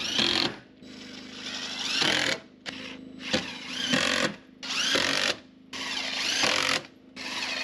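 Cordless drill driving screws through OSB sheathing into the wall studs, in about six short runs, each rising in pitch as the motor spins up.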